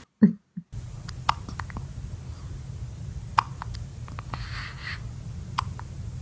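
A newborn baby's brief hiccup just after the start, with a smaller one right after. This is followed by a steady low hum of room noise, with scattered faint clicks.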